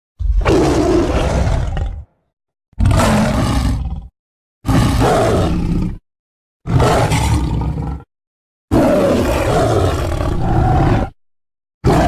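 Sound-effect roars of a Smilodon, the extinct saber-toothed cat: five loud roars of one and a half to two and a half seconds each, separated by dead silence, with a sixth starting near the end.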